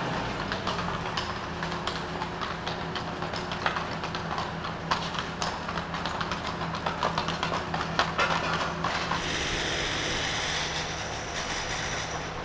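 Horse-drawn wagon on cobblestones: the hooves of its two horses clip-clop and the wagon rattles, over a steady low hum. The hoof beats stop about nine seconds in, leaving a steady hiss.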